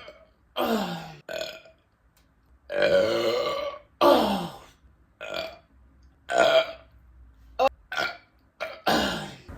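A woman belching, a rapid series of about nine burps. Several glide down in pitch, and one longer belch of about a second comes around three seconds in.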